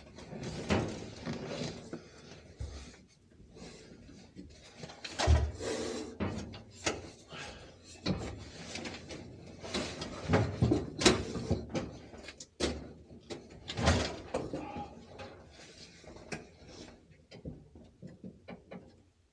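Irregular clicks, knocks and clunks of hands and tools working up under a car's dashboard, with a few heavier thumps, while fitting a boost gauge line.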